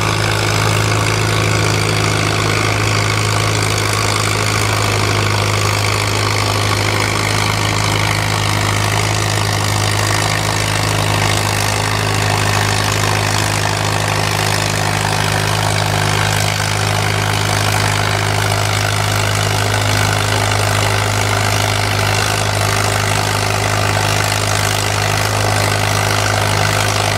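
Four-cylinder engine of a 1952 Farmall Super M tractor running steadily under load as it pulls a weight-transfer sled.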